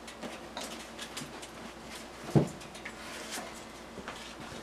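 Quiet handling noises: small scattered clicks and taps, with one soft thump a little over two seconds in.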